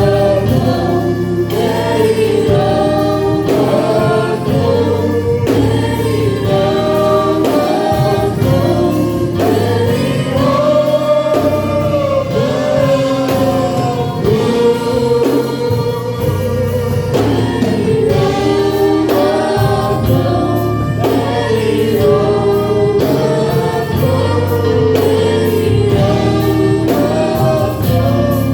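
A group of voices singing a gospel worship song together in held, gliding phrases, over a steady instrumental bass line.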